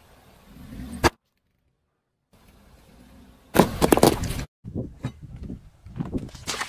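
Car tyre rolling over and crushing small objects on asphalt: a single sharp crack about a second in, then, after a brief silence, about a second of loud crackling and squelching as a row of Orbeez water beads bursts under the tyre, followed by lighter scattered crackles and knocks of the tyre on the grit.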